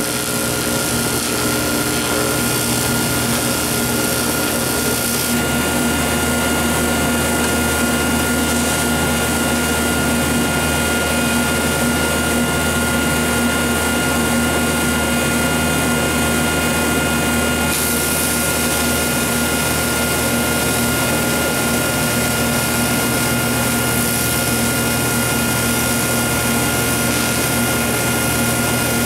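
Steady hum of a TIG welding setup running while aluminum is TIG-welded, with a constant high whine over a low drone; the arc is struck only at times.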